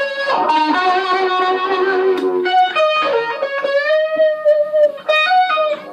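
Electric guitar playing a lead line: a run of changing notes, then one note held for over a second with a slight waver, then quick short notes near the end.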